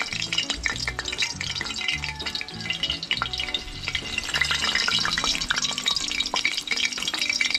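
Hot cooking oil sizzling and crackling in a frying pan around a piece of green pepper. Background music with a steady, stepping bass line plays underneath.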